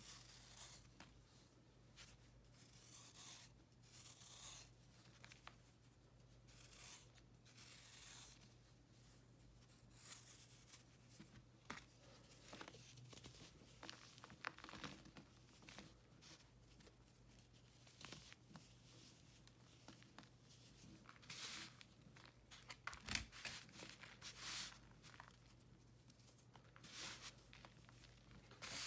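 Faint scratching, crunching and crumbling of a dried slab of baking soda, chalk and calcium carbonate, as a snap-off utility knife blade scrapes it and fingers crush the pieces and let the crumbs fall onto a pile. The sound comes as many short crackly bursts, a few louder in the second half, over a faint steady low hum.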